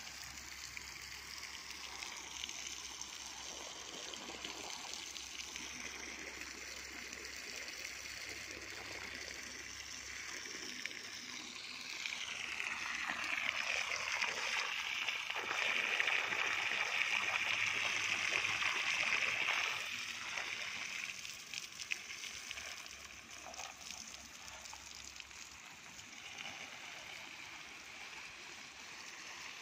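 A jet of water from a garden hose splashes steadily, first onto the soil and grass at the foot of a young mango tree and later over its leaves. It is loudest for about eight seconds in the middle, while the jet is hitting the ground.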